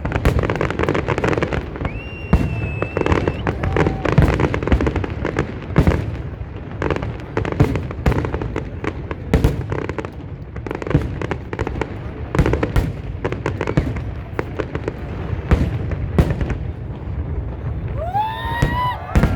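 New Year fireworks display: a dense run of sharp bangs and crackles from bursting fireworks, with a short whistle about two seconds in.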